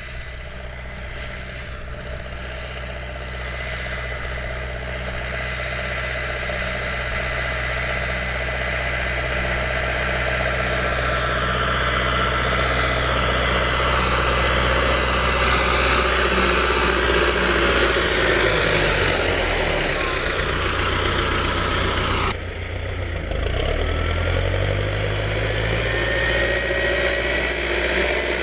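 Old wheeled tractor's diesel engine running steadily while it pulls rotary weeders through a potato field, growing louder as it draws near. After a brief dip about 22 seconds in, the engine's pitch rises.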